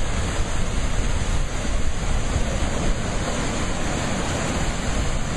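Ocean surf breaking over rocks and pouring into a churning rock pool: a loud, steady rush of water with a deep rumble beneath it.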